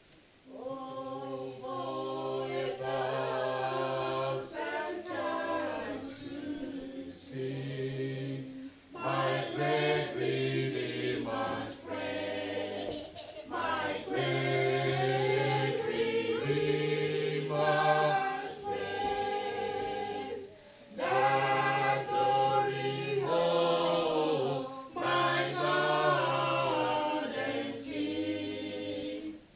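A small group of men's and women's voices singing a hymn a cappella, in phrases separated by brief pauses.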